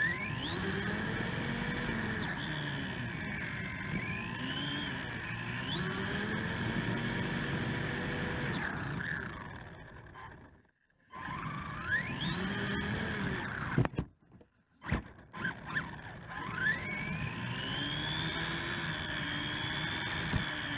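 Electric motor and drivetrain of a Helion Animus 18SC RC short-course truck whining, the pitch rising and falling as it speeds up and slows, over the rumble of its tyres on pavement. Twice about halfway through the sound drops away almost to nothing, with a few sharp clicks around the second drop.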